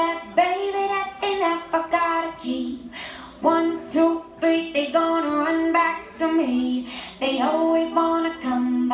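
A song with a high singing voice holding notes and moving between phrases, with light instrumental backing.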